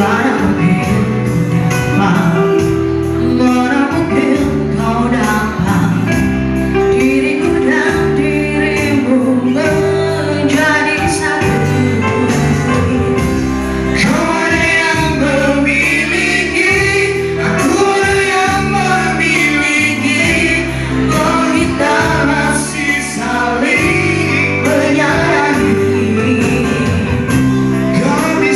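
A man and a woman singing a nostalgic Indonesian pop duet over backing music with a steady beat.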